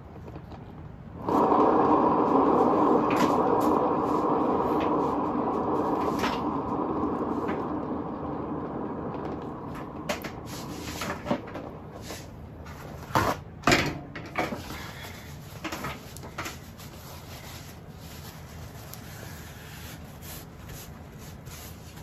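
A paint-pouring spinner turntable is set spinning about a second in and gives a steady rolling hum. The hum slowly fades as the turntable coasts down. Near the middle come a few sharp knocks and clacks as it is handled and stopped.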